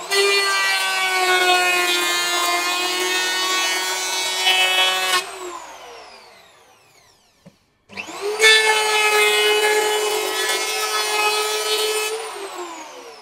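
TOTAL TL7508226 handheld electric planer cutting across hard meranti wood in two long passes, a steady motor hum under the hiss of the blades shaving the wood. After each pass the trigger is released and the cutter head spins down with a falling whine, about five seconds in and again near the end.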